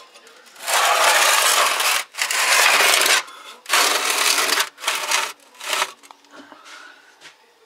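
A metal baking tray loaded with mushrooms scraped along the brick and ash floor of a Russian stove in a series of strokes: two long pushes, a shorter one, then two brief scrapes.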